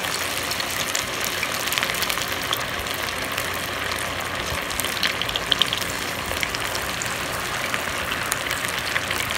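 Batter-coated cauliflower florets deep-frying in hot oil in a steel pan: a steady sizzle full of small crackles and pops.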